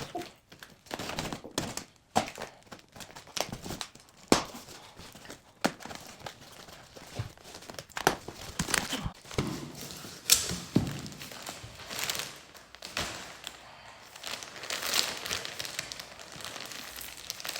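Packaging being torn open and handled, with irregular crinkling and rustling and occasional thunks as items are pulled out.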